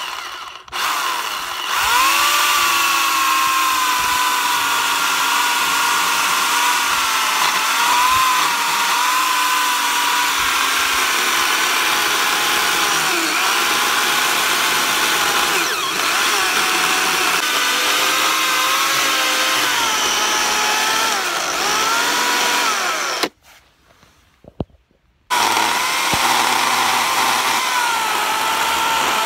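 Makita electric chainsaw ripping lengthwise through a green cherry log, its motor whine sagging and wavering in pitch as the bar loads in the wood. It starts about a second in, stops dead for about two seconds near the end, then runs again.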